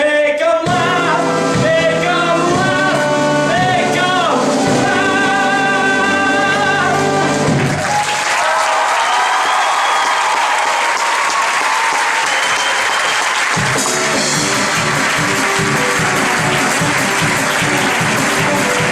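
A song from a live stage musical, voices and band ending on held notes, then audience applause from about eight seconds in. Near the end, accompaniment with a steady beat starts up under the applause.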